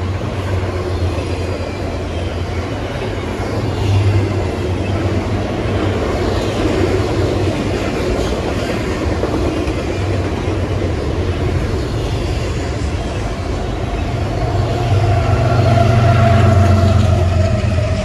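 Double-stack intermodal well cars of a long freight train rolling past at speed: a steady rumble and rattle of steel wheels on rail. Near the end it swells louder with a steady pitched drone as the tail of the train goes by.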